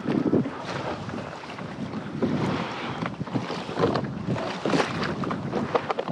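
Small waves slapping and splashing against a kayak's hull on choppy open sea, in uneven surges, with wind buffeting the microphone.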